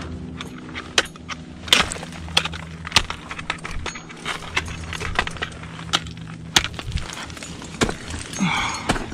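Ice axes and crampons striking snow and ice, with climbing hardware clinking: irregular sharp knocks and clinks, about one or two a second. A short scraping rush comes near the end.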